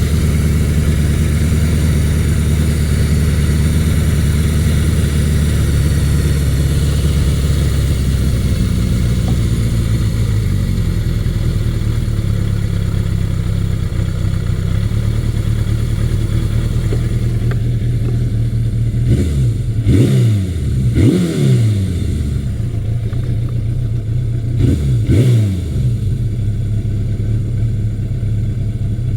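1982 Suzuki GS750E's air-cooled inline-four running at idle while the idle speed is set: the steady idle drops to a lower speed about eight seconds in. From about twenty seconds on, the throttle is blipped in several quick revs that fall back to idle.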